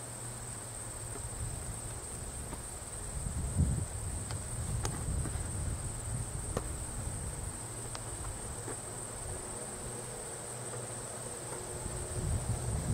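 Field insects chirring steadily: a continuous high-pitched trill that does not change, over a low rumble of wind on the microphone.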